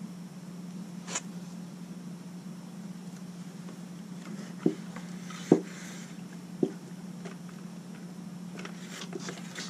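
Steady low hum with scattered sharp clicks and knocks of tools and parts being handled at a scooter's front disc-brake caliper, three louder knocks falling in the middle.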